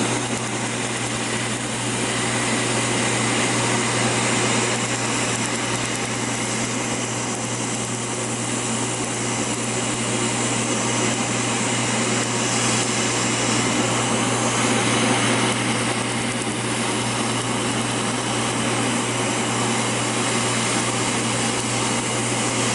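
Laser tattoo-removal machine running during treatment: a steady, blower-like whir over a low hum.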